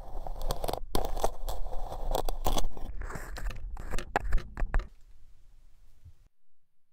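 Kinetic sand being cut and scraped with a flat blade, a close-miked grainy crunching and crumbling with many small sharp crackles that dies away about five seconds in.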